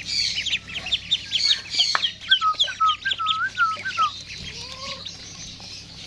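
Ducklings peeping rapidly and continuously in high chirps, with a quick run of lower calls from another bird in the middle and a light knock about two seconds in.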